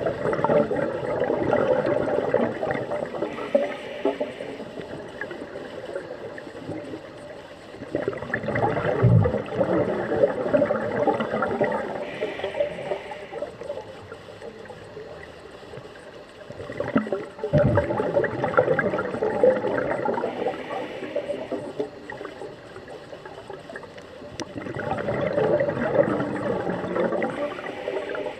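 Scuba diver breathing through a regulator underwater: exhaled bubbles gurgle in long bursts about every eight seconds, four times, with quieter water noise between.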